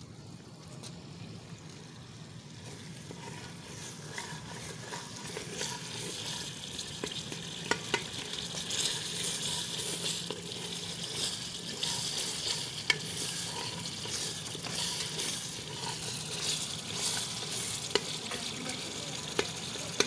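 Masala frying in hot oil in an aluminium pressure cooker, sizzling as it is stirred and scraped with a plastic spatula. The sizzle grows louder over the first several seconds, and a few sharp clicks stand out above it.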